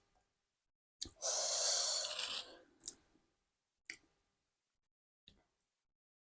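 A person's long, breathy exhale through the mouth, about a second and a half, with a few short sharp clicks before and after it.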